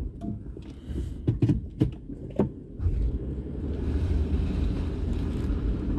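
A few knocks and clicks, then a vehicle running from about halfway through: a steady low rumble.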